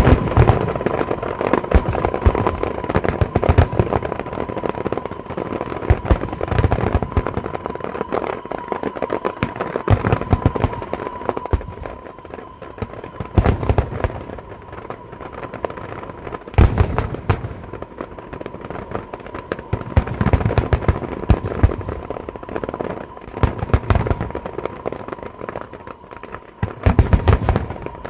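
Aerial fireworks display: a dense stream of sharp cracks and crackling, with clusters of heavy shell bursts booming every few seconds.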